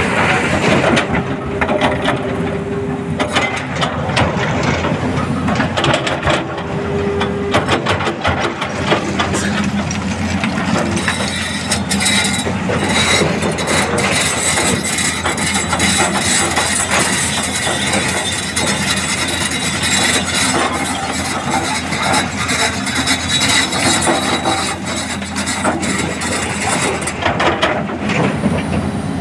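Tata Hitachi crawler excavator's diesel engine running steadily under load while its bucket scoops crushed stone, with gravel and rock clattering throughout.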